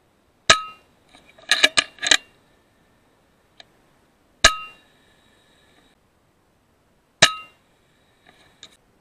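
FX Impact M3 .22 PCP air rifle fired three times, each shot a sharp crack with a short metallic ring. After the first shot there is a quick run of four or five mechanical clicks, the side lever being cycled to chamber the next slug.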